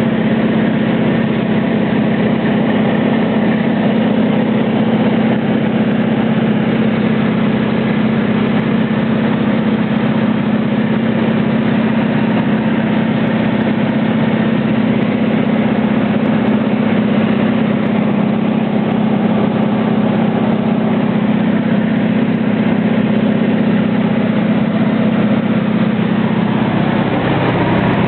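Small propeller aircraft's piston engine and propeller droning steadily in cruise, heard from inside the cabin, with a constant hum and rushing noise.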